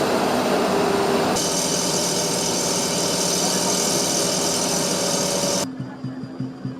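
Excavator's diesel engine running hard, getting harsher and hissier about a second in. Near the end it cuts off abruptly, giving way to music with a steady pulsing beat.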